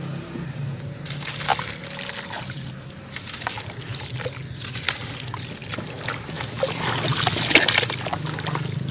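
Charcoal-and-sand blocks crumbling in water: scattered crackles and small splashes, with a denser, louder burst of crackling about seven to eight seconds in.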